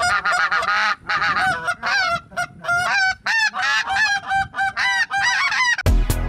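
Handheld goose calls blown in a fast run of honks and clucks, each note breaking sharply between a lower and a higher pitch. Music with a heavy beat comes in near the end.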